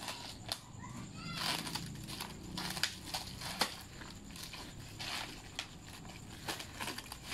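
Scissors snipping and cutting through plastic shrink-wrap on a cardboard box, with irregular sharp clicks and the crinkle of the film.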